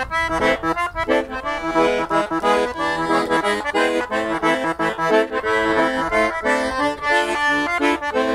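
Piano accordion playing an instrumental forró introduction: a quick melody over chords.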